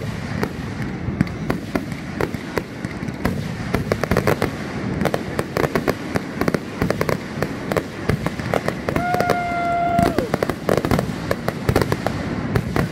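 Consumer fireworks finale: a dense, rapid barrage of shots from multi-shot cakes and their bursts overhead, overlapping with no gaps. Near the ten-second mark a steady whistle-like tone holds for about a second over the shots.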